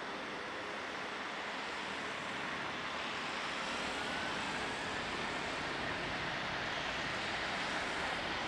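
Airbus A330 airliner's twin jet engines running as it rolls along the runway: a steady rushing noise that grows slightly louder, with a faint rising whine from about three and a half seconds in.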